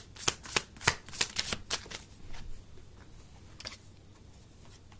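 An oracle card deck being shuffled by hand: a quick run of sharp card clicks and flicks for about two seconds, then a few scattered fainter clicks that die away.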